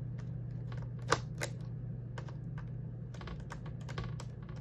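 Small scattered clicks of a screwdriver working a tiny screw out of a laptop's LCD screen mount, the two sharpest just over a second in and a run of fainter ticks near the end, over a steady low hum.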